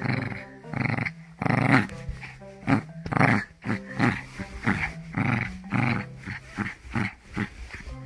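Pomspitz puppy growling in short repeated bursts, about two a second, over background music.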